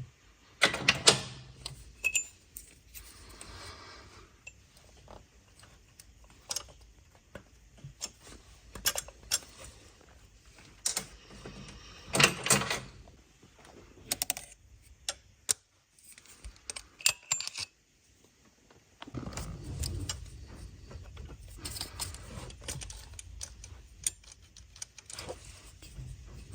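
Hand tools and small metal parts clinking and rattling in irregular sharp clicks with short pauses, as Torx screws and the fuel pressure regulator on a BMW N55 engine are worked loose by hand. A duller low rustle of handling runs through the last several seconds.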